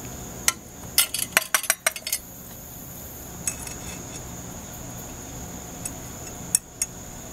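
Metal clinks and knocks of a tin can and spoon against a metal saucepan as canned vegetables and their juice are tipped and shaken out: a quick run of clinks about a second in, then a few single ones. A steady high insect drone runs underneath.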